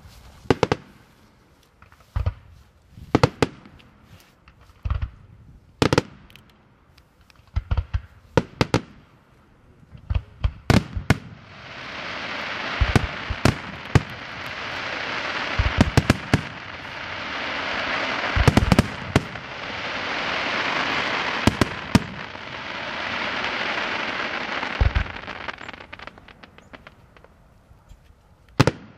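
Daytime aerial fireworks: a run of sharp single bangs from bursting shells, then from about twelve seconds in a dense crackling that swells and fades in several waves with loud bangs through it, dying away near the end.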